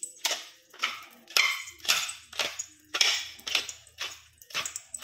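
Wooden pepper mill being twisted to grind peppercorns: a run of short dry rasping grinds, about two a second.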